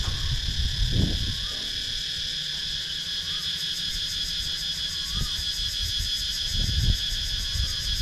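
A chorus of cicadas buzzing steadily at a high pitch, with a fast pulsing texture. A few low rumbles sound underneath.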